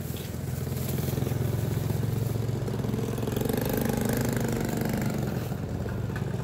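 Motorcycle engine running steadily, with its note growing a little stronger for a few seconds in the middle.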